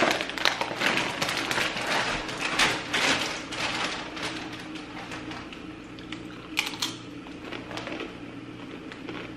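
Plastic chip bag being torn open and handled, crinkling densely for the first few seconds, then sparser crackles with two sharp cracks a little past the middle. A faint steady hum runs underneath.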